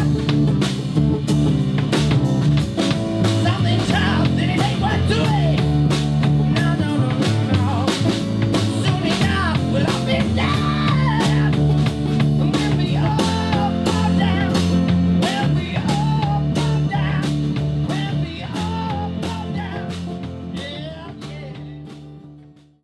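Rock band playing a guitar-led instrumental passage with a steady beat, fading out over the last four seconds or so.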